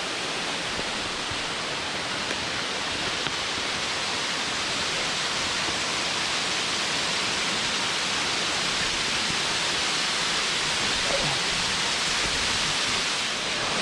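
Waterfall pouring down into a sinkhole: a steady rushing of falling water, growing slightly louder.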